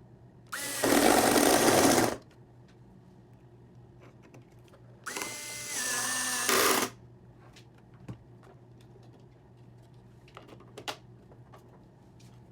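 An electric drill running in two bursts of about a second and a half each, a few seconds apart, each starting with a steady motor whine. A few light clicks and taps follow later.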